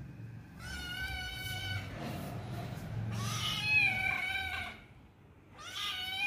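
Tabby kitten meowing three times, the middle meow the longest and loudest: the repeated call of a kitten left alone and looking for company.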